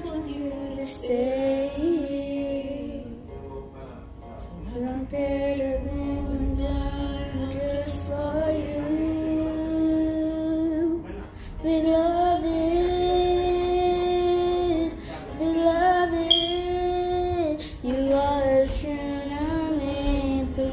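A young girl singing a slow song, holding long notes, with short breaths between phrases.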